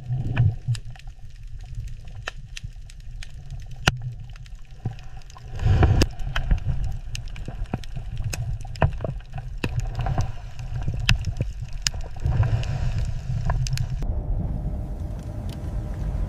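Water sloshing and gurgling over a low rumble, with many scattered sharp clicks and a louder surge about six seconds in. Near the end the higher sounds fall away, leaving a steadier low rumble.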